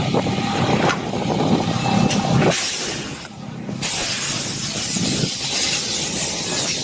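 A loud rushing hiss: a short spell about two and a half seconds in, then a longer, stronger, even hiss from about four seconds in.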